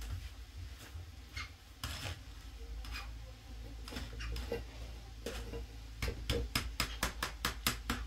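Scattered clinks and knocks of hard objects, then a quick run of about ten sharp knocks, some five a second, in the last two seconds.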